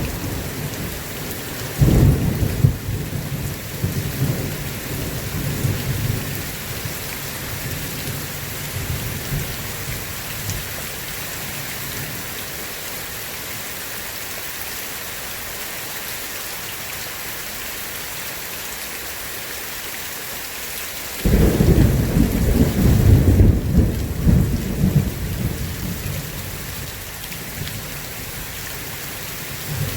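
Steady heavy rain hissing, with two rolls of thunder: one about two seconds in that rumbles and fades over several seconds, and a louder one that cracks in suddenly about twenty seconds in and rolls on for several seconds.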